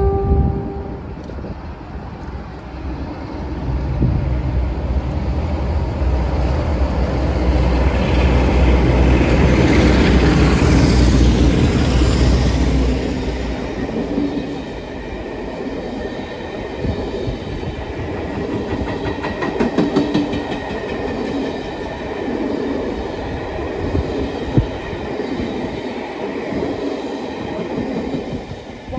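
Two Class 47 diesel locomotives' Sulzer twelve-cylinder engines working hard as the train approaches and passes at speed, a deep rumble building and loudest about ten seconds in. It is followed by a long rake of coaches clickety-clacking over the rail joints as it runs by. A horn note cuts off right at the start.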